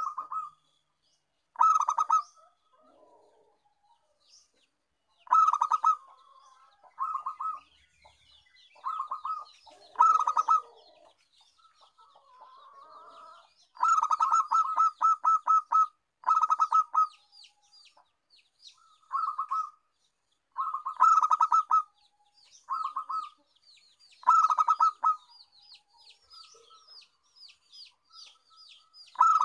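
Zebra dove (perkutut) cooing: short phrases of rapid pulsed notes, repeated every second or two, with a longer run about halfway through. Faint high chirps of another bird sound between the phrases.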